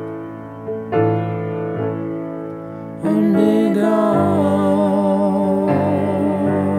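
Background piano music: struck chords that ring and fade, then about three seconds in it gets louder as a held melody with vibrato enters over sustained chords.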